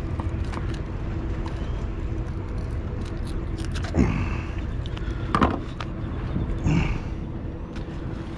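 Steady low outdoor rumble with a faint steady hum, broken by three short, louder sounds that slide in pitch, about four, five and a half and nearly seven seconds in.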